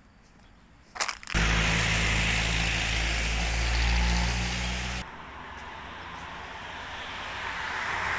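Loud steady engine noise, a low hum under a strong hiss, starting suddenly about a second in. Partway through it drops abruptly to a quieter rushing noise that slowly grows louder, then cuts off near the end.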